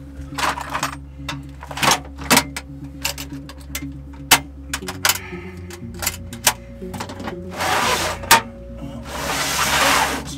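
Background music with steady sustained chords that change about halfway through, overlaid by a scattering of sharp clicks and knocks and two longer hissing rasps near the end.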